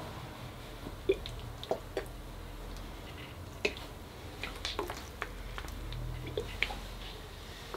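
Plastic squeeze bottle of white acrylic pouring paint being squeezed out onto a canvas, with irregular short squelches and pops from the nozzle.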